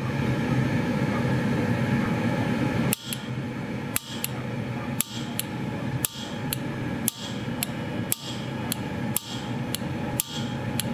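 Gas burner running with a steady low rush, and from about three seconds in, an electric gas solenoid valve clicking sharply, roughly once or twice a second. The clicking is the PID temperature controller switching extra gas to the burnout kiln's burner to hold it near 1,000 degrees.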